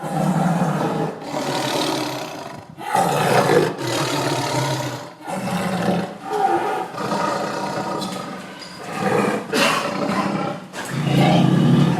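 Tiger roaring over and over, a run of loud, growly roars about a second each with short breaks between them.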